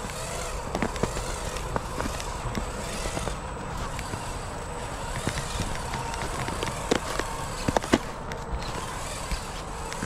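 Irregular crunching and crackling of footsteps and a radio-controlled rock crawler's tyres over snowy, twiggy trail ground, with a few sharper snaps about seven and eight seconds in.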